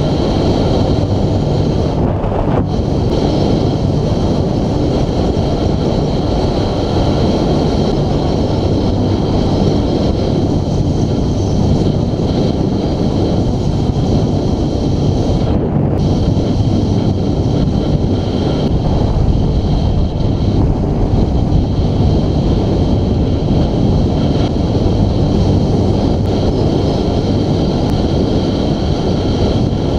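Steady, loud wind rush buffeting the microphone of a camera on a moving road bike.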